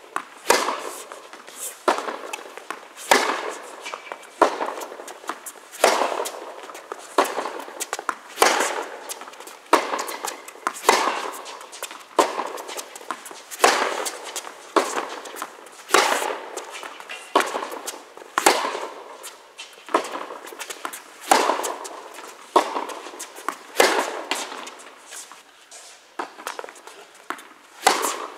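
Tennis rally: rackets striking the ball and the ball bouncing on the court, a steady run of sharp cracks about one every second and a quarter, each echoing around the indoor hall.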